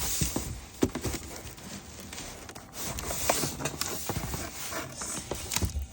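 Cardboard box and packing scraping, rustling and knocking as a heavy dehumidifier is tugged and slid out of it, with irregular thumps and clicks.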